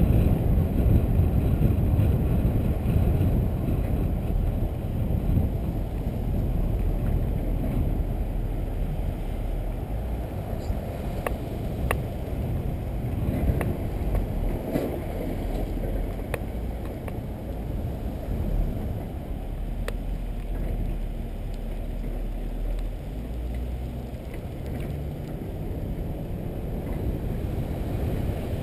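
Low, steady rumble of a car driving slowly, heard through a camera mounted on its hood: wind and road noise, with a few faint clicks about a third of the way in.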